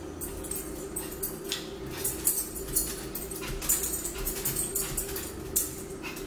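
A dog whimpering, with repeated short bursts of light jingling and clinking.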